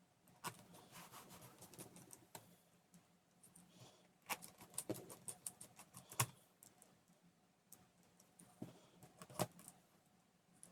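Faint small clicks, taps and light rustling of laptop parts being handled and fitted back together during reassembly, with a few sharper knocks about four, six and nine seconds in.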